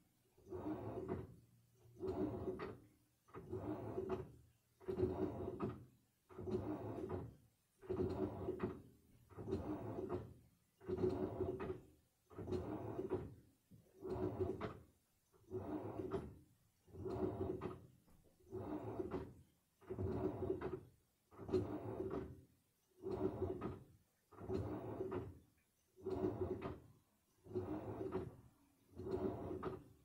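Samsung front-loading washing machine in its wash cycle: the motor turns the drum in short, regular strokes, about one every second and a half, tumbling wet laundry through the water, with a pause between strokes.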